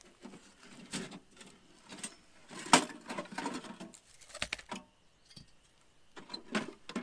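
Thin titanium wood-stove parts being handled: a scatter of light metallic clinks and rattles as the nested stovepipe sections are drawn out of the stove body, the sharpest clink a little under three seconds in.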